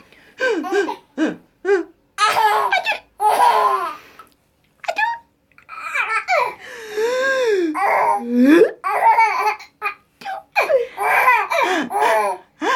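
A baby laughing in repeated short bursts of belly laughs, set off by his mother's sneezes.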